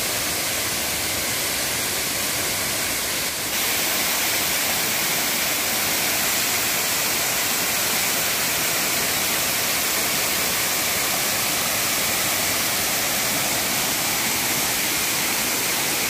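Waterfall pouring down a steep rock face onto the rocks below: a steady rush of water that gets a little louder about three and a half seconds in.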